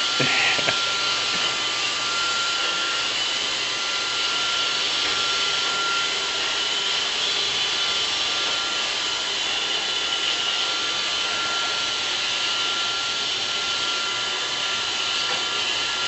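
Roomba robotic vacuum cleaner running: a steady whirring hiss with a thin high whine.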